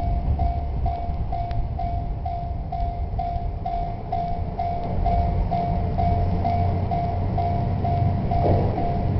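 Japanese railway level-crossing warning bell ringing about twice a second, over the low rumble of a diesel train on the Ibusuki-Makurazaki Line passing the crossing, which grows louder about halfway through.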